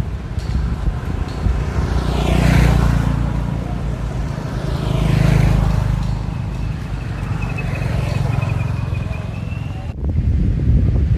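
Two road vehicles passing by, one about two and a half seconds in and another about five seconds in, each swelling and fading over a steady low rumble of wind on the microphone. The sound breaks off abruptly about ten seconds in.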